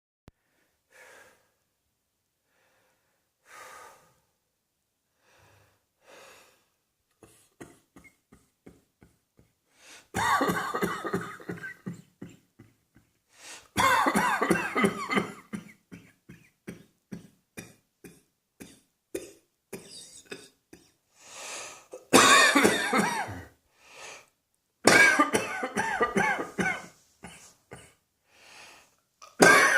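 A person coughing: a few faint coughs at first, then, from about ten seconds in, loud fits of rapid coughing lasting a second or two each, five in all, with quieter single coughs between them.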